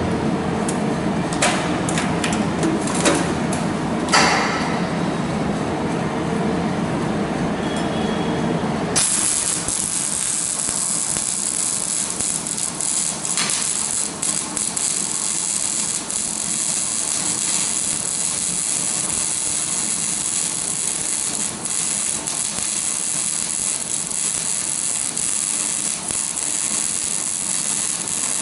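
Low machine hum with a few sharp clicks and a knock, then, about nine seconds in, an electric welding arc strikes and runs as a steady hiss with crackle.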